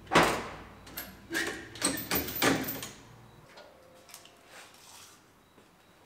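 Metal clanking and rattling as the hand ratchet on a pulling chain is released and the chain goes slack: a cluster of sharp clatters in the first three seconds, the loudest at the start, then only a few faint clicks.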